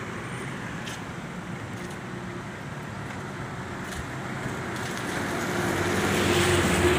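Road traffic on wet pavement: a steady background of engines and tyres, with one vehicle's engine and tyre hiss growing louder over the last two seconds as it passes close.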